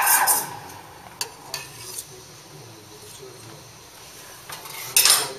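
Espresso machine steam wand hissing into a stainless milk pitcher, stopping about half a second in; a few light metal clinks follow. Near the end a sudden loud blast of steam: the wand being purged.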